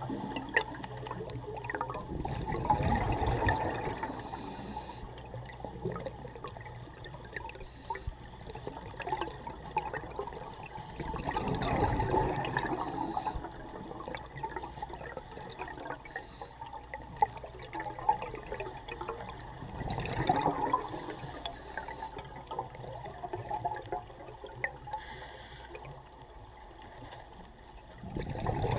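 Scuba diver's regulator exhaling, heard underwater: a bubbling, rumbling rush about every eight to nine seconds, four times, with faint crackling and clicks in between.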